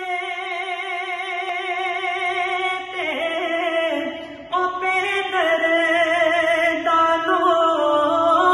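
A man singing solo with no accompaniment, long held notes with heavy vibrato. The melody steps down about three seconds in, the voice fades for a moment, then comes back louder on a new phrase around four and a half seconds.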